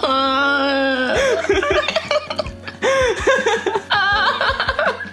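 A woman whimpering and half-laughing in disgust as she chews: one long held whine, then a string of short rising-and-falling whimpers and giggles. Background music with a steady beat plays under it.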